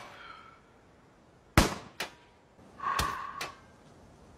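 A single rifle shot about a second and a half in, a lighter click half a second later, then a short metallic ring near the end.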